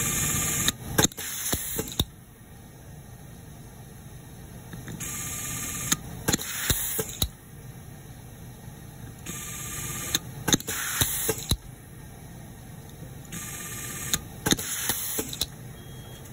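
Automatic screw feeder with an auto-feed electric screwdriver running through its screw-fastening cycle four times, about four seconds apart. Each cycle is a hiss lasting about a second, followed by a quick cluster of sharp clicks as a screw is driven home.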